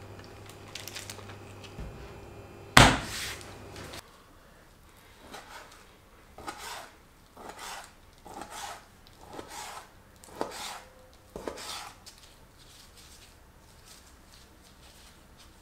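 A knife slicing raw chicken breast into thin strips on a plastic cutting board: about a dozen short drawn strokes, roughly one every half second, from about five seconds in until about four seconds before the end. Earlier, about three seconds in, a single sharp sound is the loudest thing heard.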